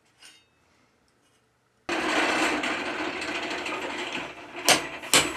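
Near silence at first, then a steady mechanical whirring rush cuts in suddenly about two seconds in and dies away. Near the end, a hand hammer strikes red-hot iron on the anvil twice, about half a second apart, each blow ringing.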